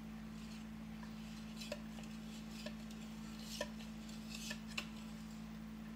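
Brownie batter being scraped out of a plastic mixing bowl into a glass baking dish, with about five light clicks and knocks of the utensil against the bowl and dish.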